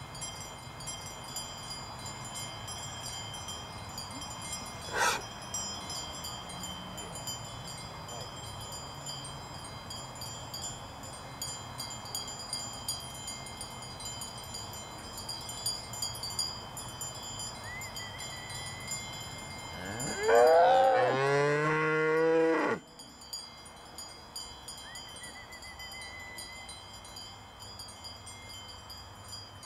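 Cowbells on grazing cattle clanking and ringing without a break, a jumble of overlapping bell tones. About twenty seconds in, a cow gives one long, loud moo lasting a couple of seconds.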